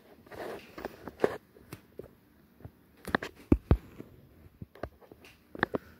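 Irregular taps, knocks and rubbing sounds of handling and movement close to the microphone, with a cluster of louder thumps about three seconds in and another near the end.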